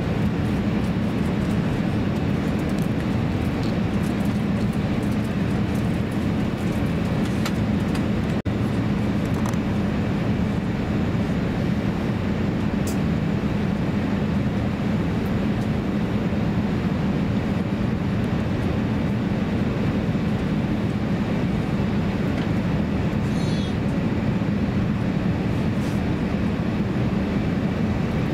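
Steady cabin roar inside an Airbus A350-900 on final approach with its landing gear down: engine and airflow noise, with a couple of faint clicks.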